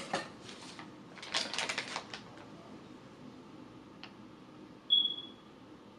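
Rapid clicking and rustling of packaging and tackle being handled in an opened box, in two short bursts within the first two seconds, then a single click. About five seconds in there is one brief high-pitched squeak.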